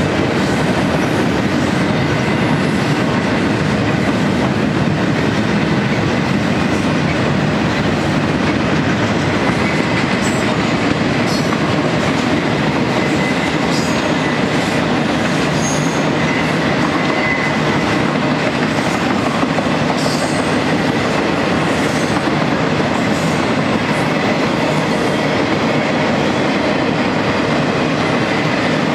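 Double-stack intermodal freight train's well cars rolling past in a steady, dense rumble and rattle, with a faint high wheel squeal held underneath.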